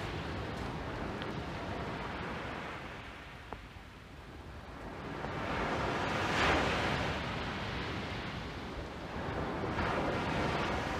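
Surf breaking on a sandy beach, the wash swelling and fading, loudest a little past the middle and again near the end, over a steady rumble of wind on the microphone.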